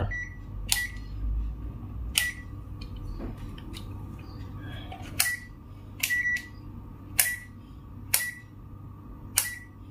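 Digital multimeter beeping: a sharp click with a short high beep, about seven times at irregular intervals, one beep a little longer near the middle.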